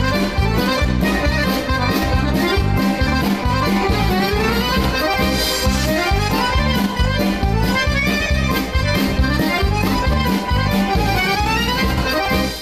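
Theme music of a TV cooking show's opening titles, with a steady beat, cutting off suddenly at the end.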